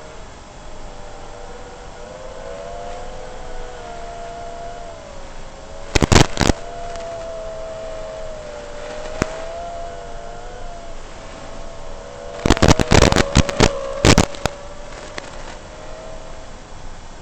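FPV quadcopter's electric motors whining, their pitch wavering up and down as the throttle changes. Loud crackling bursts break in about six seconds in and again for a stretch around twelve to fourteen seconds in.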